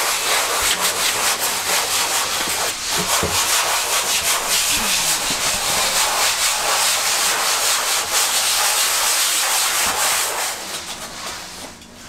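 Hand sanding of an RV's interior wall panel with a sanding block, in quick back-and-forth rasping strokes. It dies down from about ten seconds in.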